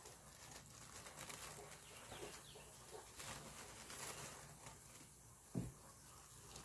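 Quiet handling noise as a mesh-wrapped bouquet is picked up and turned, with a soft thump about five and a half seconds in. Faint bird calls in the background.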